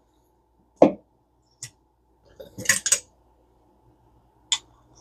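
Metal clicks and clinks of small hand tools, a socket tried on a reel nut: one knock about a second in, a short clattering rattle near the middle, and a single click near the end.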